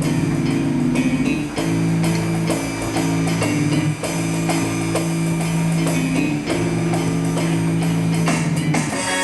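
Live instrumental music: long held chords that change every second or two over a steady beat.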